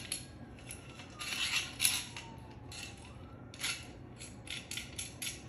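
Handling noise of rods being fitted to a wooden pochade box to make an easel: rustling, light scrapes and small knocks, busiest about a second and a half in, with a few shorter ones near the end.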